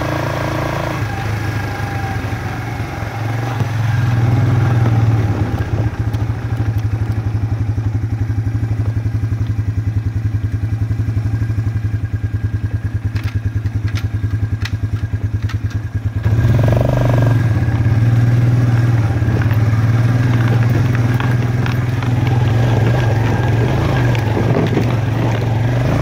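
Suzuki Ozark ATV's single-cylinder four-stroke engine running under way on a dirt trail. About 6 s in it eases off to a slow, even putter, with a few sharp clacks from the wooden bridge boards rolling under the tyres, and picks up again, louder, at about 16 s.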